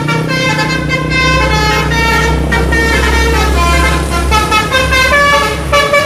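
Indonesian 'telolet' multi-tone bus horn playing a quick tune of stepped notes, over the low engine rumble of passing coach buses.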